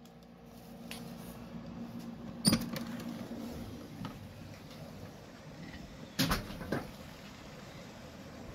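A sliding glass door being opened, with a sharp clack about two and a half seconds in, and a second group of two or three knocks around six seconds in.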